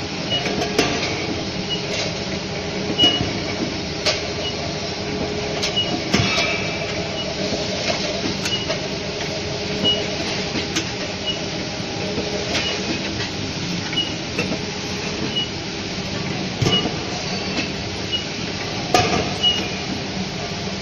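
Automatic can seaming machine running: a steady mechanical hum with irregular clicks and knocks as metal cans are indexed through the star wheel and seamed. A short high chirp repeats about every second.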